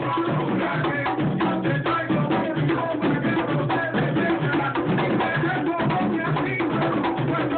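Live plena music: several panderetas, hand-held plena frame drums, struck by hand in a dense, fast, steady rhythm.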